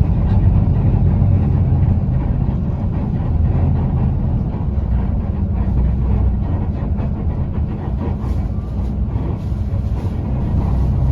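Cabin noise of a TransJakarta city bus on the move: a steady low rumble of engine and road, with faint light rattles over it.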